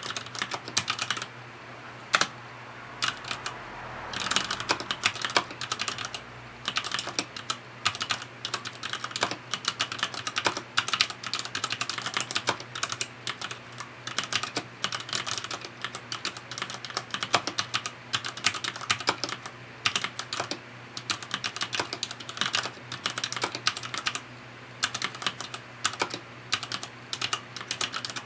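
Fast, continuous touch-typing on a FILCO Majestouch 2 mechanical keyboard with linear Cherry MX Red switches: a dense run of keystroke clacks, with a short lull a couple of seconds in and another near the end.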